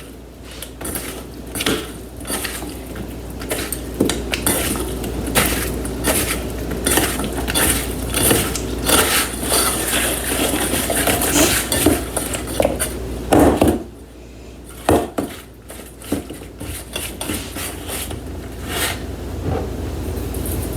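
A utensil stirring and clinking against a bowl, tossing sliced potatoes in olive oil, salt and pepper to coat them. Continuous scraping and clinks that ease off briefly about two-thirds of the way through, then resume.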